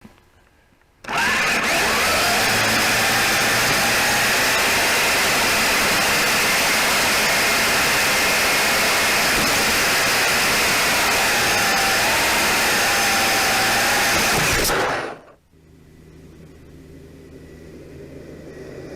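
Kyosho Blizzard SR radio-controlled snow vehicle driving, its motor and gears whining over a steady rushing noise, starting about a second in. About three-quarters of the way through it cuts off sharply, leaving a quieter low hum.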